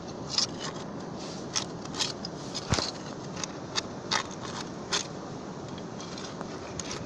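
Thin metal rod scraping and clicking against rock and wet sand as it is worked into a worm burrow: a string of short, sharp scrapes, the loudest a little under three seconds in.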